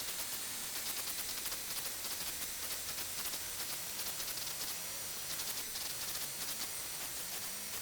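Power abrasive grinder sharpening the cutting edge of a spring-steel kukri: a steady hiss of the grit grinding the steel.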